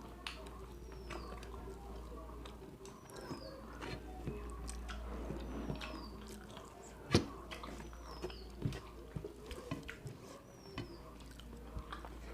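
Chewing and eating sounds with scattered small clicks and taps, and one sharper click about seven seconds in. Behind them, a short high falling chirp repeats about every second and a half.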